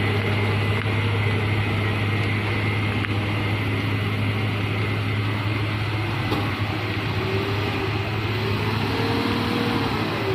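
Diesel engine of a Hino Euro 4 truck working steadily under load on a slippery climb, its wheels slipping; its pitch wavers up and down in the last few seconds.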